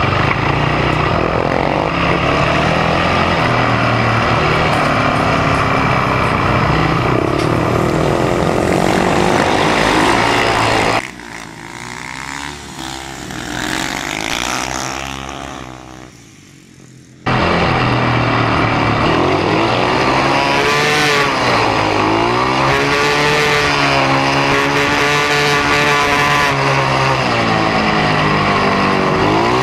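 Speedway motorcycle's single-cylinder 500 cc methanol engine at racing throttle, heard from a camera on the bike, its pitch rising and falling through the turns. About eleven seconds in it drops to a quieter sound of speedway bikes lapping and passing by, then the loud onboard engine cuts back in about seventeen seconds in.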